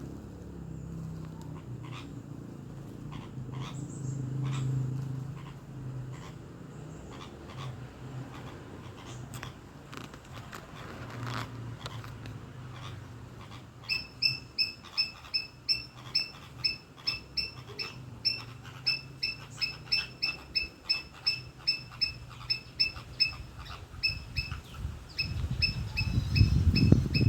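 A bird calling with a sharp, high chirp, repeated about three times a second from about halfway in. Under it is a low hum with scattered small clicks, and a loud low rumble near the end.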